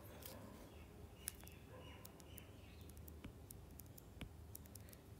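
Near silence with faint, scattered light clicks of a stylus tip tapping on an iPad's glass screen while handwriting, over a low steady hum.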